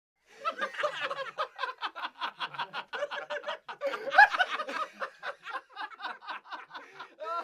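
A group of young men laughing together in quick bursts, with a louder swell of laughter and rising "ooh" calls about four seconds in and again near the end.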